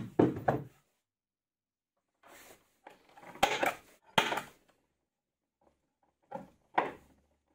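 Workshop handling sounds on a wooden bench: knocks as the plywood base is set down and turned over, then scraping with two sharp clicks as an awl marks pilot holes in the plywood, and two short scrapes near the end as a screw-on rubber foot is driven in with a screwdriver.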